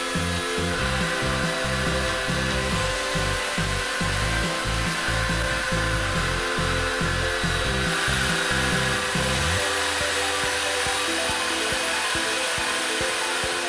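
Benchtop belt sander running steadily, a short metal rod pressed against the moving abrasive belt to grind its end, over background music with a steady beat.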